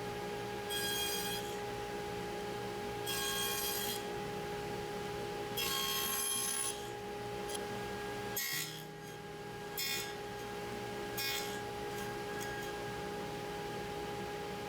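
Hand tool working wood in separate scraping strokes, each about half a second to a second long, a few seconds apart, with a steady held tone underneath.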